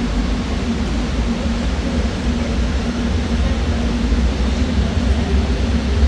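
Shinkansen train moving through the station: a steady rushing rumble that grows slightly louder.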